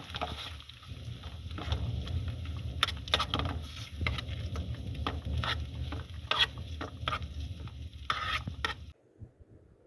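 Food being stirred in a frying pan: irregular utensil scrapes and knocks against the pan over a low steady rumble. The sound cuts off suddenly near the end.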